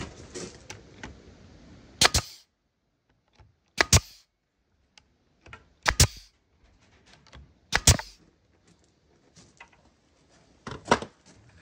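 Nails being driven into wood: five sharp, loud cracks about two seconds apart, each a quick double strike.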